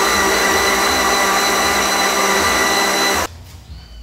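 Electric countertop blender running steadily at speed, whirring through a thin liquid batter of milk, oil and eggs, then switched off, cutting out suddenly about three seconds in.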